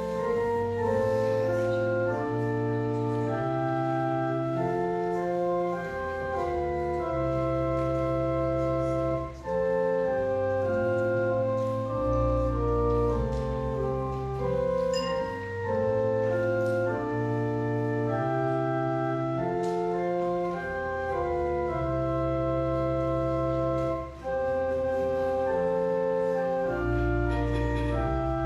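Church organ playing a slow prelude of held chords over deep pedal bass notes, with brief breaks between phrases about nine and twenty-four seconds in.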